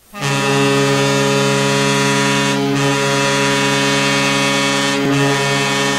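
Vancouver Canucks arena goal horn blowing one long, loud, deep blast of several tones together. It starts abruptly, holds steady, and dips slightly twice, about two and a half and five seconds in.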